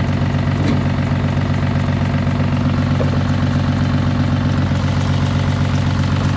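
2009 Honda Odyssey's 3.5-litre V6 idling with a steady low pulsing, sounding really ugly: it has a severe misfire on one cylinder and an exhaust leak at the muffler underneath.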